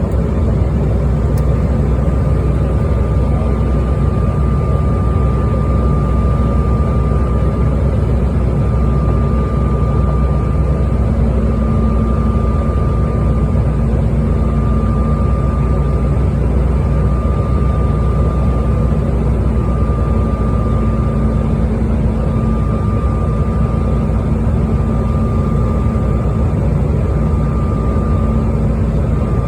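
Airliner cabin noise in flight: a loud, steady rumble with a thin, constant whine above it.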